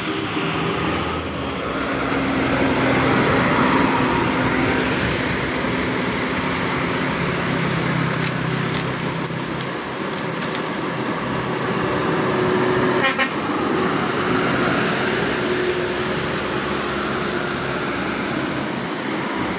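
Tour bus going by with engine and road noise throughout, its multi-tone telolet horn sounding notes at changing pitches over it. A short sharp knock about thirteen seconds in.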